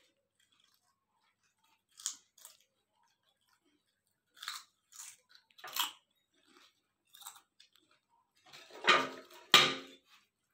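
Children chewing and crunching crisp chips (Lay's and Kurkure), in short scattered crunches, with two louder noises near the end.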